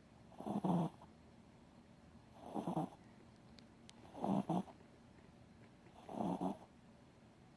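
Shih Tzu dog snoring in deep sleep: four snores about two seconds apart, each lasting about half a second.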